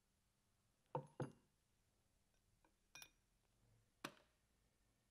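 Faint handling knocks and clinks as the metal disc and washer of a pump clack valve are taken off and set down on a wooden bench: two knocks close together about a second in, a ringing metallic clink about three seconds in, and one more knock about a second later.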